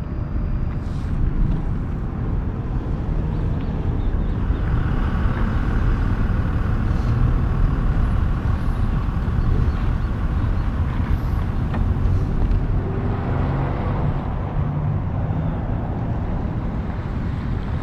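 Heavy truck's diesel engine running at idle: a steady low rumble, with a little more mid-range engine noise for several seconds in the middle.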